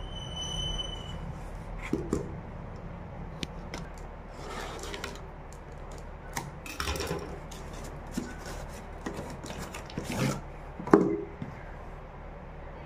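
Kitchen knife slitting packing tape on a cardboard delivery box, with scraping, rubbing and handling of the cardboard: a series of short scrapes and sharp knocks, the loudest knock near the end.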